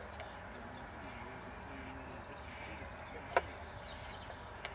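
Quiet outdoor ambience by a pond: faint birdsong, with a quick run of high chirps about two seconds in, over a steady low background noise. A single sharp click a little after three seconds.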